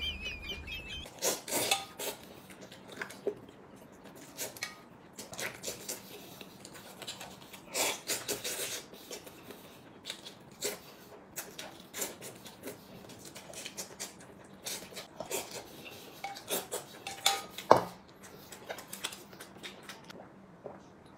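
Eating at the table: chopsticks clicking and scraping against a metal bowl, with scattered bursts of chewing and slurping.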